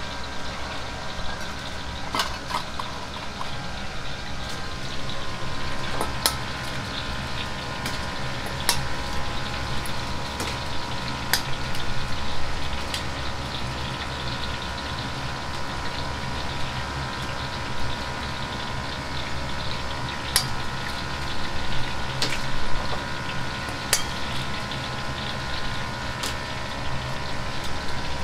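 Oil heating in a wok on a commercial gas range, sizzling steadily over a low rumble, with scattered sharp clicks from metal bowls and utensils being handled.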